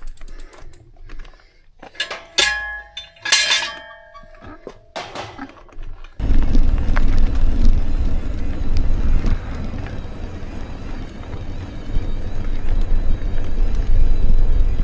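A few light clicks and two ringing metallic strikes about a second apart. Then, about six seconds in, a loud, steady rush of wind on the microphone starts suddenly while riding the bicycle.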